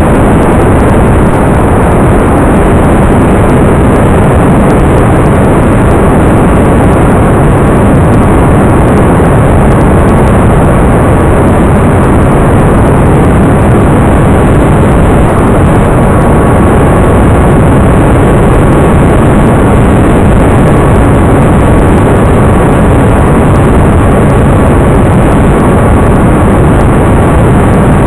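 Loud, steady rushing of wind and motor noise on the onboard microphone of a Talon FPV model plane in flight, with a faint steady whine.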